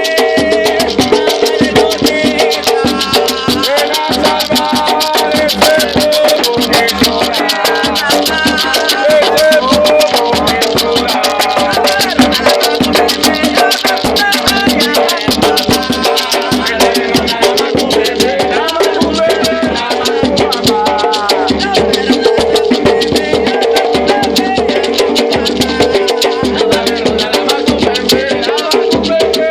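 Batucada hand-drumming with shaken rattles, a fast, steady, dense rhythm that keeps going without a break, for Afro-Brazilian Umbanda ritual music.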